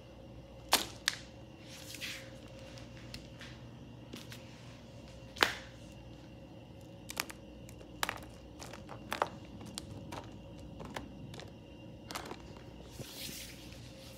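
Hard plastic toy animal figures clicking and knocking against each other in a box as they are handled, in scattered single knocks with some rustling. The loudest knocks come about a second in and just past halfway.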